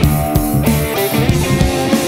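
Rock background music with electric guitar and drum kit.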